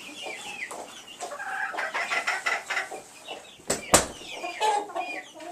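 Several chickens clucking, short calls overlapping throughout. Two sharp knocks close together about four seconds in.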